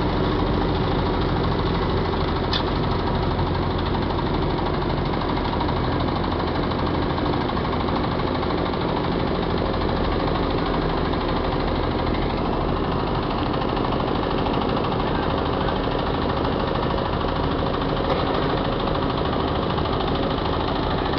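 Large diesel engine running steadily at idle with a heavy, knocking rumble.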